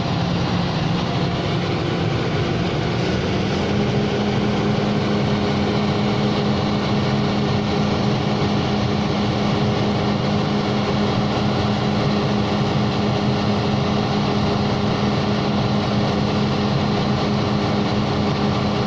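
Engine and hydraulics of an HGS hydraulic static pile-driving machine running steadily; the engine note steps up slightly about three to four seconds in and then holds.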